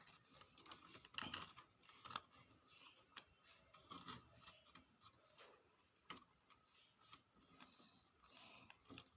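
Faint, scattered small clicks and scrapes of hand tools working on an amplifier circuit board while a transistor is taken off it.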